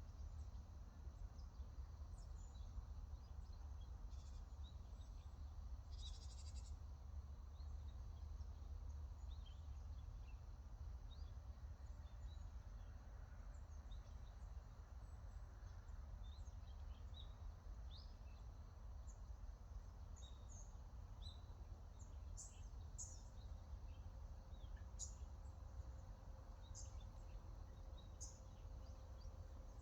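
Wild birds chirping in short, scattered high calls, coming more often in the last third, over a steady low background rumble.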